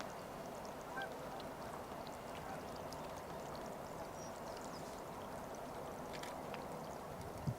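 Faint outdoor ambience with a few short, distant bird calls, and a brief soft thump near the end.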